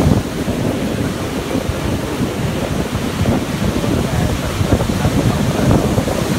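Ocean surf washing up a sandy beach: small waves breaking and foamy water rushing over the sand, a continuous wash, with wind buffeting the microphone.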